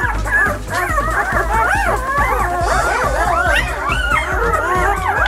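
A litter of six-day-old puppies squeaking and whimpering, many short high squeals rising and falling and overlapping continuously, with music underneath.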